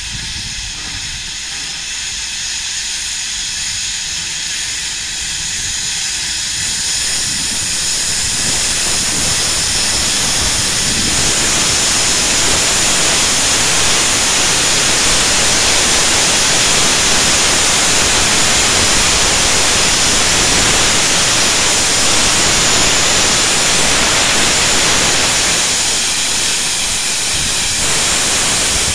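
Steam locomotive venting steam low down by its wheels, a loud steady hiss that builds over the first ten seconds or so.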